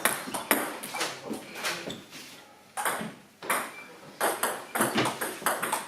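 Table tennis rally: the ball clicks back and forth off the bats and table, about two or three hits a second, with a short break a little past the middle before play starts again.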